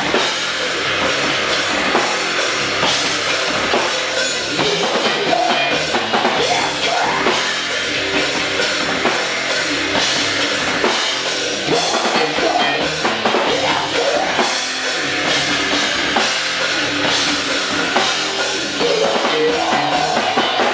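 Heavy rock band playing loudly live, the drum kit prominent over a dense, steady wall of music.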